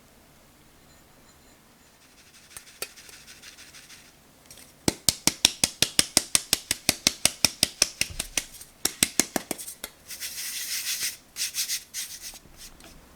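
Rapid, even clinking of a kitchen utensil against a bowl, about six or seven strikes a second for several seconds, followed by a brief scraping rustle and a few light knocks.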